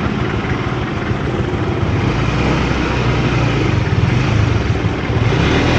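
Motorcycle engine running steadily under way, over a steady rush of wind noise; the engine note grows stronger about two seconds in.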